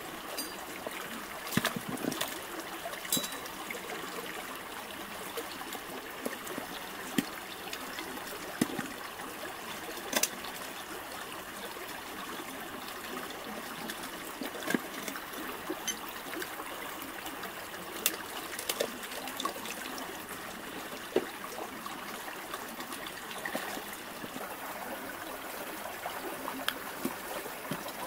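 Shallow creek water trickling steadily, with scattered sharp clicks and knocks from large freshwater clam shells being handled on the rock.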